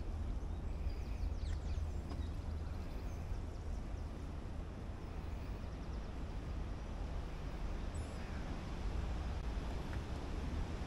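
Outdoor ambience of faint birds chirping in short calls, about a second in and again near 8 seconds, over a steady low rumble.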